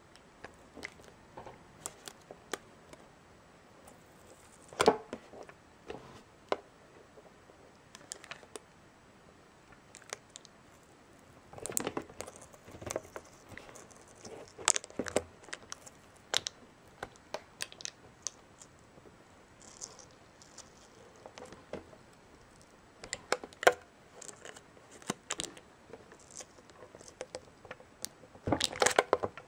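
Fingers picking and prying at a clear plastic product display case and its cardboard base: irregular plastic crinkles, scratches and clicks. Louder crackling comes about five seconds in, around twelve and twenty-three seconds, and in a burst near the end.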